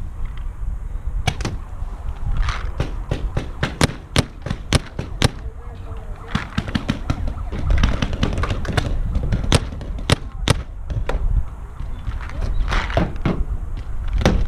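Paintball markers firing: many sharp pops in irregular volleys, some in quick runs of several shots.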